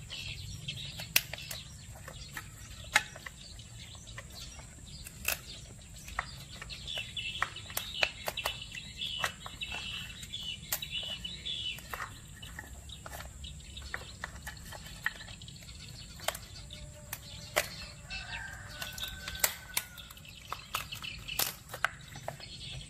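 Sharp clicks and cracks of mud crab shell being handled and prised apart by hand, with knife and shell knocking on a wooden board, while birds call in the background.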